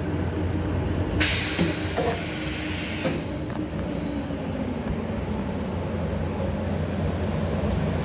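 Raft ride's conveyor-belt lift running with a steady low mechanical rumble under rushing, splashing water, with a brighter hiss of spray from about one to three seconds in.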